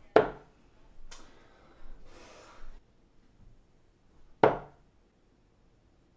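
Steel-tip darts striking a Winmau Blade 5 sisal bristle dartboard: two sharp thuds, one right at the start and one about four and a half seconds in. Softer breathy noise falls between them.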